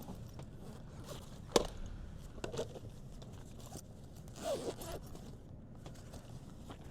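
Handling noises: scraping and rustling, with one sharp click about a second and a half in and a short scrape about four and a half seconds in.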